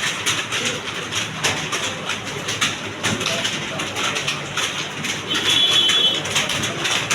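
Many computer keyboards clattering at once as a room of candidates types, the key clicks irregular and overlapping. A brief high beep sounds about five and a half seconds in.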